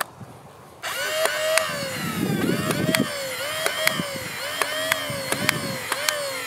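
A click as a magazine snaps into a Worker Hurricane foam-dart blaster. About a second later its flywheel motors spin up to a high whine and it fires a rapid string of darts. Each shot is a sharp snap that drops the motor pitch, which then climbs back, the motors being run on an 11.1-volt LiPo battery.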